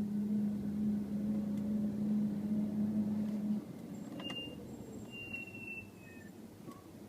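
Hawk HP+ performance brake pads on DBA 4000 series T3 rotors: a steady low hum for about three and a half seconds that then stops, the dragging, humming harmonic noise the owner hears between squeals, followed by two short high-pitched brake squeals.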